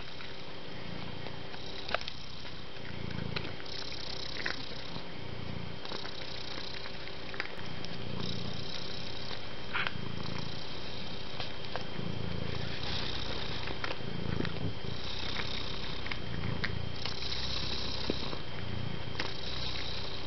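Domestic cat purring steadily close up, the purr swelling and fading about once a second as it breathes in and out.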